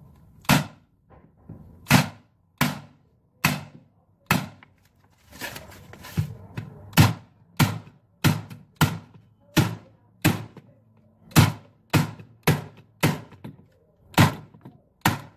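Corded electric staple gun firing about twenty times, each shot a sharp crack, as it fastens black stair nosing strips down onto the wooden treads. The shots come at an irregular pace, roughly half a second to a second apart, quickest in the middle.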